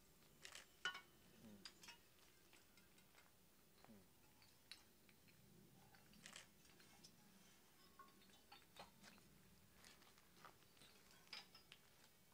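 Faint, scattered clinks and taps of fired terracotta pots and figurines being lifted out of the ash of an open-heap firing, about a dozen irregular knocks with the loudest about a second in.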